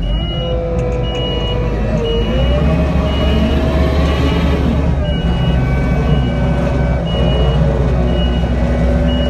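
Kubota SL75-2 tracked skid steer's 75-horsepower diesel engine running under load as the machine moves, with its backup alarm beeping about once a second as it reverses.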